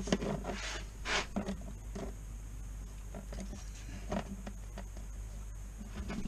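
Hands handling objects on a workbench, a model locomotive box and track among them, making light rustles and small knocks. They come about a second in and again around four seconds in, over a steady low hum.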